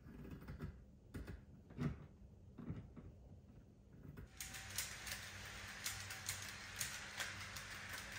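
Scattered clicks and knocks of model train track being handled and fitted. About four seconds in, a model train starts running along the track: a steady rattling run with many small clicks.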